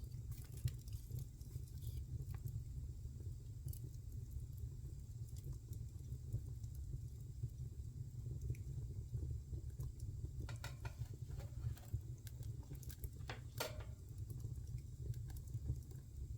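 Wood fire burning in a fireplace: a steady low rumble with scattered sharp crackles and pops, which come thicker about two-thirds of the way in.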